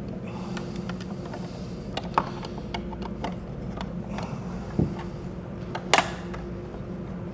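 Hand driving machine screws into a plastic motorcycle bag lid to fasten a latch cover: scattered small clicks and taps of the screwdriver and parts, a dull thump about five seconds in, and a sharper click about a second later, over a steady low hum.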